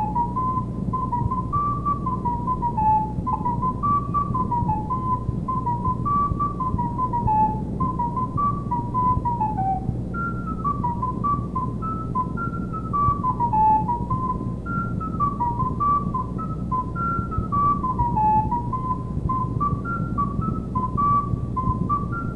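Recorder playing a quick melody of short notes, a single line that steps up and down; about ten seconds in it dips low, then carries on higher. A steady low hum runs underneath.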